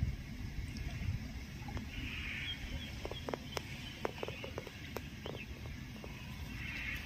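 Outdoor ambience: a steady low rumble with scattered sharp clicks and ticks, thickest around the middle.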